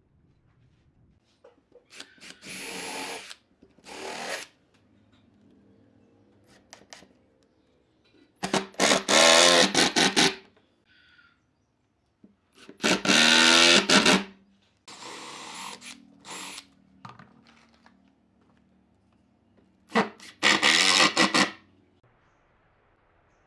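Handheld power drill boring holes through a pine brace into a slatted wood panel, running in about six short bursts of one to two seconds with pauses between.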